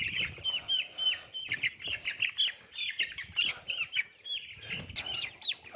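A flock of young meat chickens (broiler chicks) peeping continually: many short, high chirps that each drop in pitch, several a second, with scattered light clicks.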